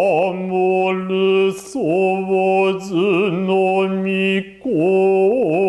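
A man's solo Hōshō-school Noh chant (utai): long drawn-out syllables with a slow wavering pitch, broken twice by short pauses for breath.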